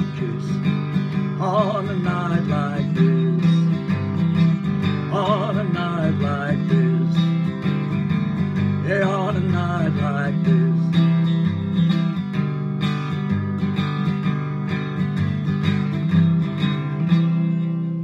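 Acoustic guitar strummed steadily in chords, with a man's voice singing long wavering notes three times. A final strummed chord near the end is left to ring out.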